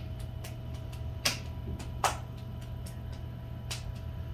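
Electric potter's wheel running with a steady low hum while a wet clay cylinder is thrown by hand, with scattered sharp clicks from the wet work, two of them louder, about a third and halfway through.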